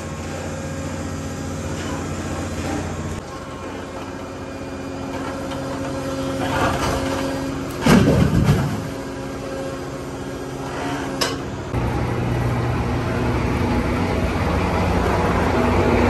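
Husqvarna demolition robot's hydraulics running with a steady machine hum that changes pitch as the load shifts. About eight seconds in, its crusher jaw bites the vault's concrete with a loud crunch, followed by a sharp snap a few seconds later.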